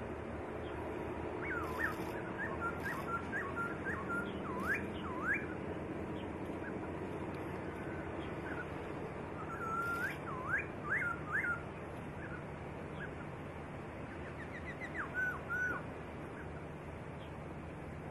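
Black-throated laughingthrush singing: three bouts of clear, slurred whistles that swoop up and down, over a steady background hiss.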